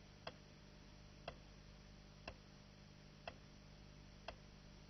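Near silence: a steady low hum and hiss, with a faint sharp tick about once a second.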